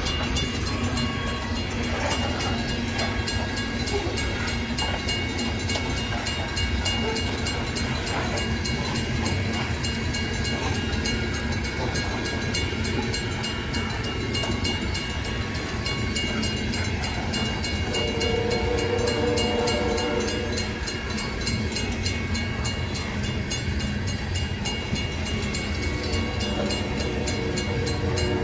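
Freight train passing, a steady noise of its cars running along the rails.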